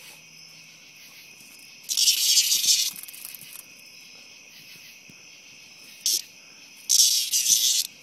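A cicada giving loud, harsh distress buzzes while dogs nose and paw at it: two buzzes of about a second each, about two and seven seconds in, and a short one just before the second. A steady high insect trilling runs underneath.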